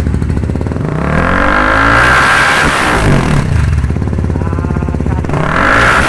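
CFMoto SR300's single-cylinder engine through a Villain M1 open exhaust pipe, idling and then revved up and let back down twice.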